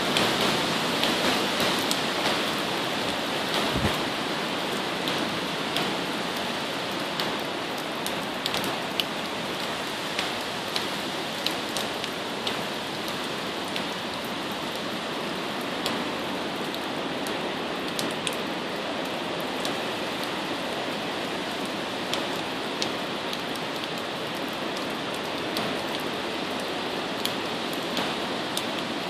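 Hurricane wind and heavy rain: a steady rush of wind-driven rain through trees, with many sharp drop ticks scattered through it. Louder in gusts during the first few seconds, then a little steadier.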